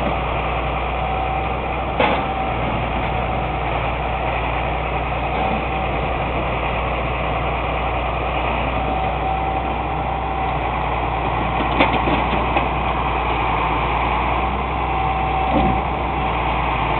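Truck engine idling steadily, with a sharp knock about two seconds in and a few more knocks later on.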